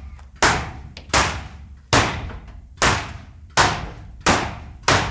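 .22 LR bullets striking a corrugated sheet-metal wall in a steady string of shots. There are seven sharp metallic impacts, a little under a second apart, each trailing off briefly.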